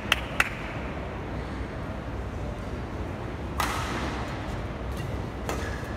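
Badminton rally: sharp racket strikes on a shuttlecock, the clearest about three and a half seconds in and another near the end, over the steady hum of an indoor sports hall. Two light clicks come just after the start.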